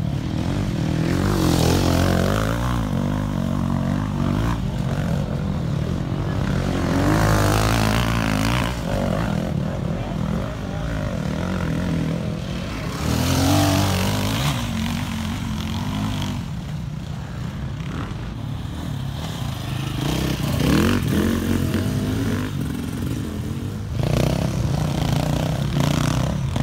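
Enduro dirt bike engines revving hard under load on a steep, rooty climb. Several bikes pass in turn, and the pitch surges up and falls back again and again as the riders work the throttle.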